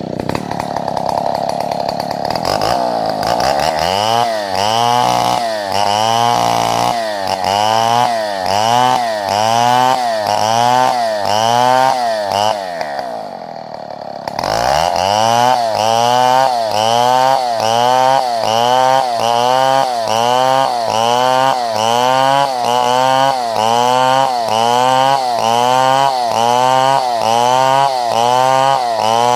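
Two-stroke chainsaw running at high revs. After a few steady seconds, its pitch dips and recovers in a regular rhythm, about one and a half times a second. About halfway through the engine drops back briefly, then revs up and the same rhythmic dipping resumes.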